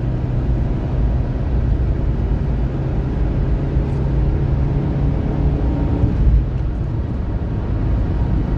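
Steady road and engine noise inside a Fiat Palio's cabin at highway cruising speed: a low tyre rumble under an even engine hum.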